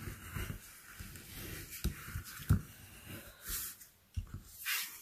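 Bone folder rubbed along the fold of a folded piece of cardstock to burnish the crease: a scraping, hissing rub of the tool on paper. A few soft taps of tool and hands on the table, the sharpest about two and a half seconds in.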